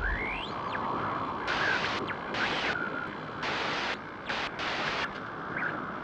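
Sound effect under an intro title card: a steady hiss that swells in several short, sharp-edged bursts, with a few thin whistling glides, one rising near the start.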